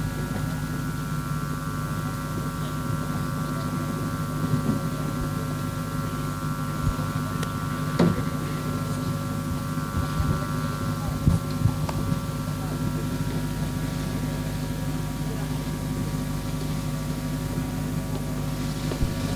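Steady droning hum made of several held tones, with scattered knocks and clicks, the sharpest about eight seconds in.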